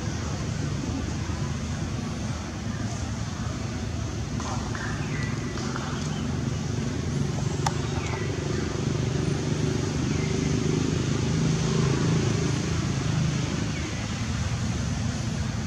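Low, steady engine rumble of road traffic that grows louder for a few seconds in the middle, with a few short, high squeaks falling in pitch.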